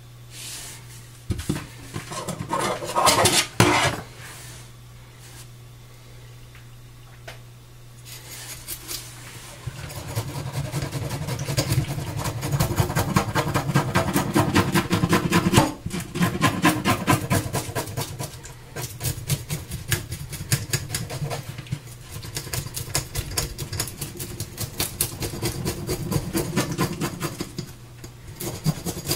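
Croaker being descaled in a stainless steel sink: fast, repeated rasping scraping strokes as the scales are scraped off, continuing for most of the time after some knocks and rattles of handling the fish in the sink. A steady low hum sits underneath.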